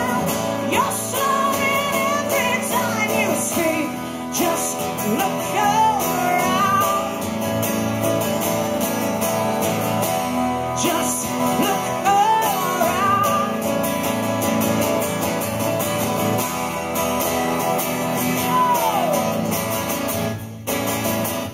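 Two acoustic guitars strummed and picked together with a woman singing over them, played live to an audience. The sung line bends and slides between notes.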